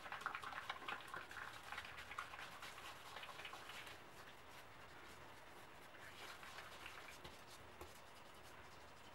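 Hands rubbing foamy cleanser lather over the face and beard: a faint wet squishing and crackling of the foam, strongest in the first few seconds and again briefly about six seconds in.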